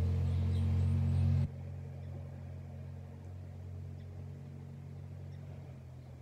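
Low, steady engine hum made of several pitched tones. It drops sharply about a second and a half in, then runs on more quietly and slowly fades.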